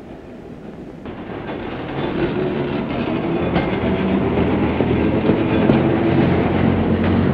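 Train passing close by, getting louder about a second in and then staying loud, with a steady low hum under the rolling noise.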